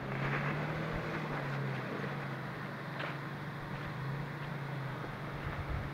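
Nissan Xterra's V6 engine running steadily at low revs as the SUV crawls up a dirt and rock slope, with a noisy haze of tyres on loose ground and a few faint clicks.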